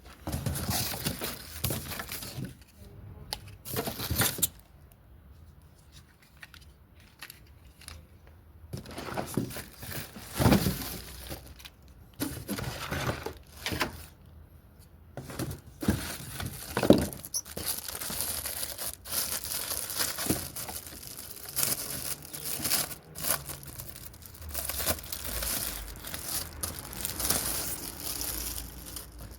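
Packaging being unpacked by hand: plastic and cardboard crinkling and tearing in irregular bursts, with a few sharper knocks.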